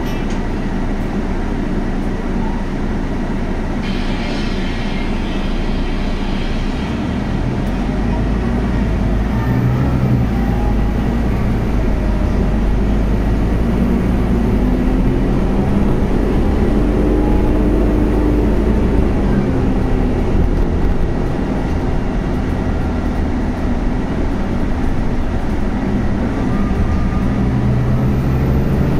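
Inside a Scania Castrosua New City articulated city bus with a compressed-natural-gas engine and ZF Ecolife automatic gearbox: a steady interior rumble of engine, drivetrain and road noise. It grows louder and deeper about seven seconds in as the bus gets moving, and the engine note rises and falls through the middle.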